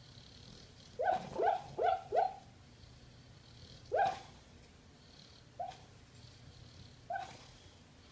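American Bulldog barking in her sleep while dreaming: short, rising yips, a quick run of four about a second in, then three single ones spaced out, the last two fainter.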